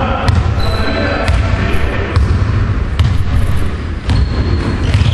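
A basketball dribbled on a wooden gym floor: a steady run of heavy thuds about twice a second. A few short high-pitched squeaks come in about half a second in and again about four seconds in.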